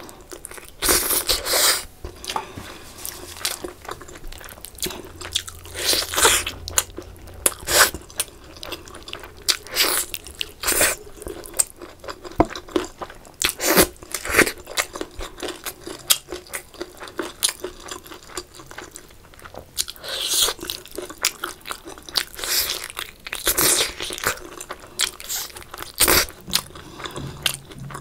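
A person chewing and biting into chicken leg meat and rice: irregular mouth clicks of eating, a few a second.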